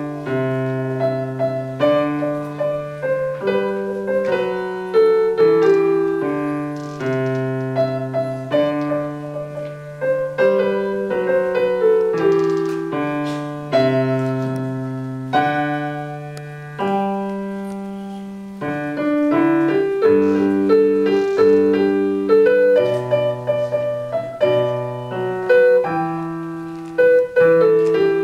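Grand piano played solo: a slow, gentle piece with long-held low notes under a melody, each note struck and left to ring and fade.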